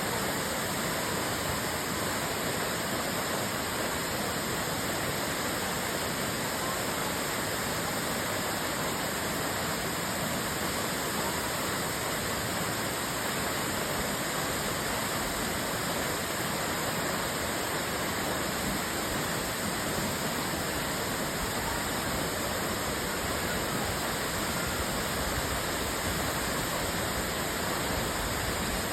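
Waterfall: a steady rushing of falling water that does not change in level.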